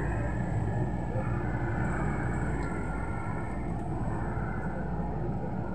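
Mini excavator's diesel engine running steadily while it digs and swings, an even low drone.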